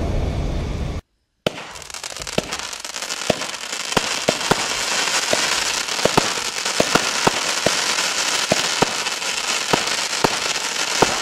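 Fireworks cake firing shot after shot, a sharp pop about every half second over a steady crackling hiss. A low rumbling intro sound effect cuts off about a second in.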